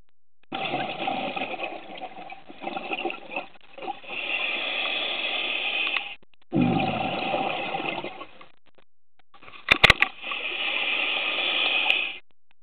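Scuba regulator exhaust: a diver's exhaled bubbles rush out in three long breaths with short quiet pauses for inhaling, heard underwater. A few sharp clicks come just before the third breath.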